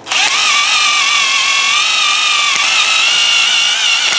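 Cordless drill spinning a brass wire wheel brush against a rusty exhaust flange, scrubbing off rust. A steady high whine with a scratchy hiss, its pitch wavering slightly as the brush is pressed on.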